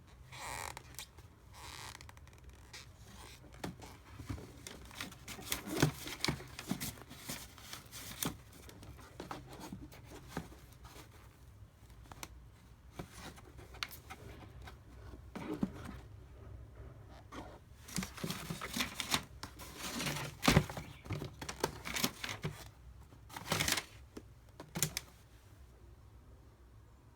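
Packaging rustling and crinkling while football boots are unboxed and handled, with scattered sharp taps and clicks, the loudest about two-thirds of the way through.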